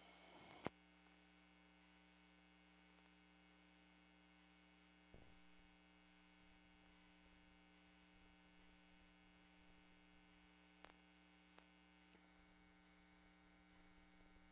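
Near silence: a faint, steady electrical hum, with a single sharp click about a second in.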